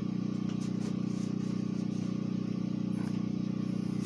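Steady low mechanical hum, like a fan or appliance motor, with a few faint clicks.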